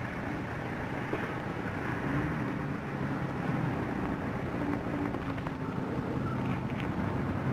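Steady street traffic noise: cars running past in a city street, a continuous low rumble.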